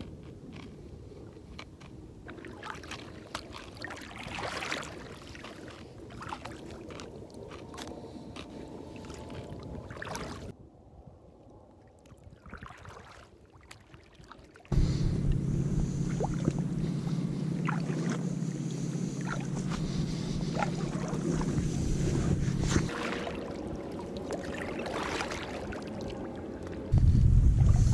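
A kayak on the water with scattered small clicks and splashes. About halfway through, a louder steady rumble of wind on the microphone sets in, and it rises again near the end.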